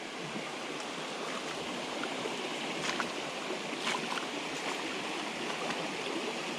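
Swift-running creek water rushing steadily, with a couple of faint clicks about halfway through.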